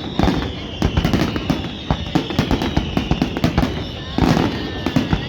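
Fireworks display: a rapid, continuous barrage of bangs and crackling, with a high whistling tone that slowly falls in pitch over the whole stretch.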